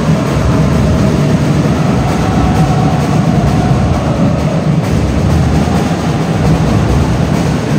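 Steady din of crowd and game noise echoing around a large indoor basketball hall, heavy in the low end, with a faint drawn-out tone wavering through it.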